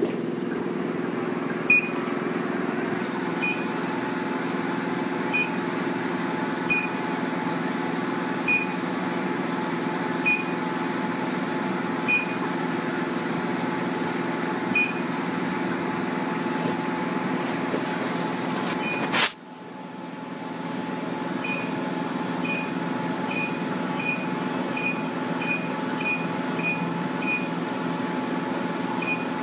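BM18-2S diode laser hair removal machine running with a steady hum from its cooling system, with short high beeps repeating about every second and a half. About two-thirds of the way in there is a click and the hum dips, then builds back up, and after that the beeps come about twice as fast.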